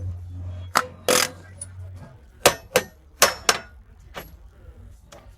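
Several sharp metallic clicks and knocks at irregular spacing, with one longer scraping burst about a second in, as of tools on an e-rickshaw's metal parts. A low hum runs underneath and stops about two seconds in.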